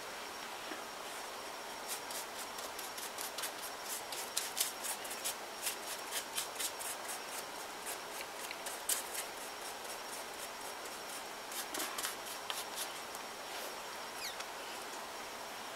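Paintbrush bristles scratching and dabbing over a dry paper mache surface as a coat of gesso is brushed on: quick, irregular dry scratches that start about two seconds in and thin out near the end, over a faint steady hiss.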